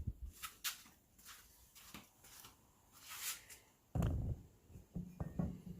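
Scattered short scrapes and clicks of hand tools and hardware during work on a car's suspension, with a dull thump about four seconds in.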